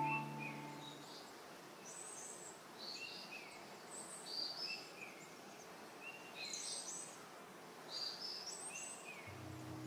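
Wild birds singing short, high chirping phrases, repeated about once a second over faint outdoor hiss. Background music fades out in the first second and comes back near the end.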